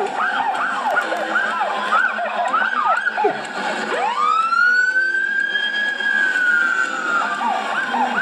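Fire engine sirens: a fast, repeating rising-and-falling yelp, then about four seconds in a wail siren climbs steeply, holds its pitch and slowly falls away, with the yelp coming back near the end. The sound comes from footage playing on a screen.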